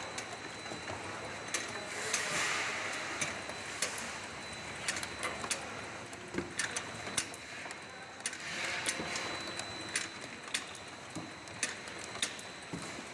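An automatic multi-nozzle bottle filling and capping machine running. Irregular sharp clicks and knocks go on throughout, with a faint steady high tone, and two stretches of hiss about six seconds apart.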